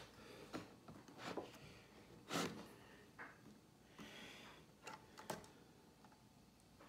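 Faint handling noises: a few light clicks and rustles as computer parts are handled, with one slightly louder soft swish about two and a half seconds in.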